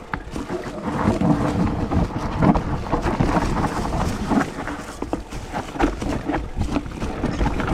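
Mountain bike descending a rough downhill trail at speed: a rapid run of knocks and rattles from the bike over bumps, over tyre noise on dirt and wind on the microphone.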